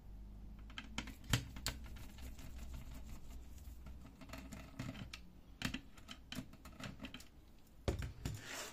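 Screwdriver turning a screw out of the side frame of an HP Color LaserJet CP3525 fuser unit: a run of small, irregular clicks and ticks, with a louder clack and rustle near the end.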